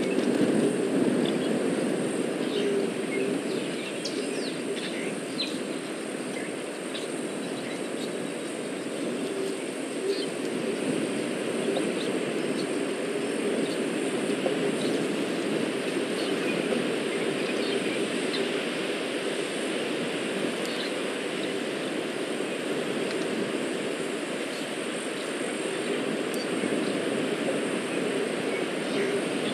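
Outdoor bush ambience: a steady low rumble with scattered short bird chirps over it and a constant faint high whine.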